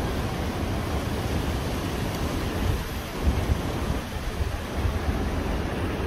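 Strong gusty wind buffeting the microphone: a steady low rush that swells and dips with the gusts.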